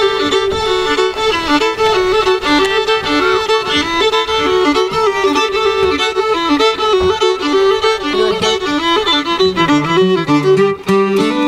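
Fiddle playing a quick, busy bluegrass melody line, one note after another with little pause.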